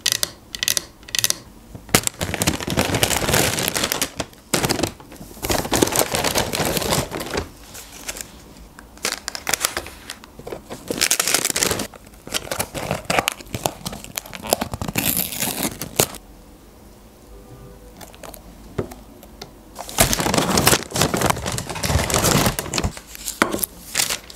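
Fingernails tap on a wooden serving board at the start. Then paper fast-food packaging rustles and crinkles in bursts as bags, cartons and a nugget box are handled and set down on the board, with a lull about two-thirds through.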